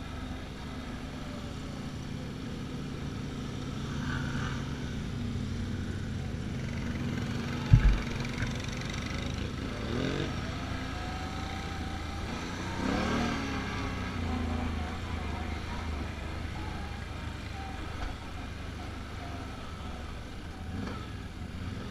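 Can-Am Outlander ATV engine running while riding across a dirt field, its pitch rising and falling with the throttle, mixed with the engines of other ATVs close by. A single sharp thump about eight seconds in.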